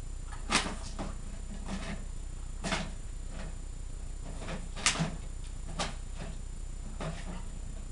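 Plastic bottles on a wooden treat-dispenser frame knocking and rattling as a dog noses them round on their rod: a few sharp clacks at irregular gaps of a second or two, the loudest about five seconds in.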